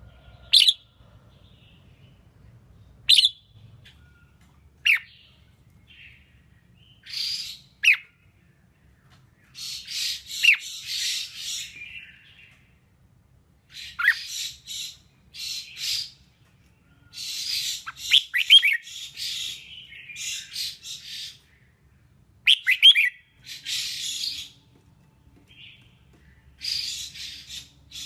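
Red-whiskered bulbul singing. Three short, sharp down-swept notes come a couple of seconds apart, then longer warbled phrases follow with brief pauses between them.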